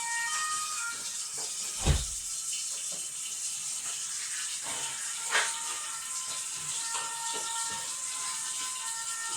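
Household cleaning sounds: a steady hiss with two sharp knocks, one about two seconds in and a lighter one about five seconds in, over soft background music.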